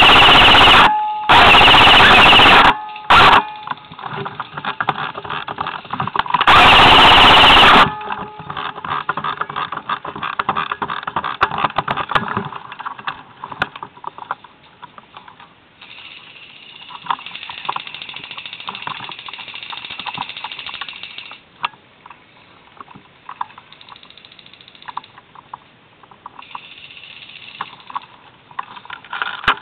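Classic Army SPR airsoft electric rifle, with the camera mounted on it, firing four bursts in the first eight seconds, three lasting over a second and one very short, each loud enough to overload the recording. After that come scattered clicks and rustling.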